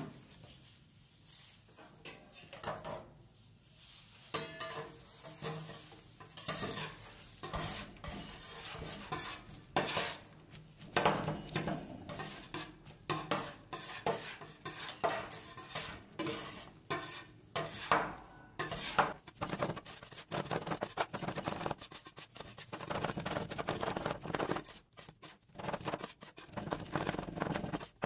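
Two metal spatulas chopping and scraping popcorn into cream base on a steel rolled-ice-cream cold plate: quick, irregular taps and scrapes of metal on metal. The sound is sparse at first and becomes busy from about four seconds in.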